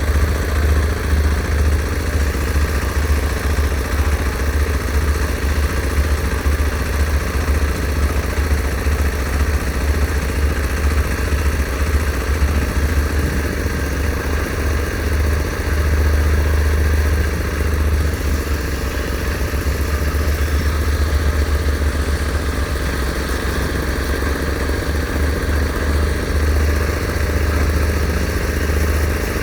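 Engine of heavy construction machinery running steadily with a deep low hum, its level rising and falling a little.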